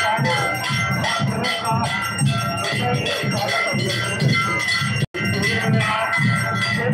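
Metal bells ringing continuously for a Durga Puja aarti, over a steady drum beat about twice a second. The sound cuts out for an instant about five seconds in.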